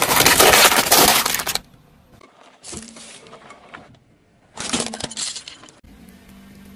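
Hard plastic cups with dome lids cracking and crunching under a rolling car tyre, a loud crackle lasting about a second and a half. A fainter crackle comes near the middle, then a second loud plastic crunch of about a second as a plastic toy bird goes under the tyre, and a low steady hum near the end.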